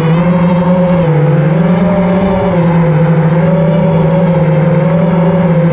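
Brushless motors and propellers of an FPV quadcopter spinning at a steady speed: a loud, continuous buzzing whine whose pitch wavers slightly.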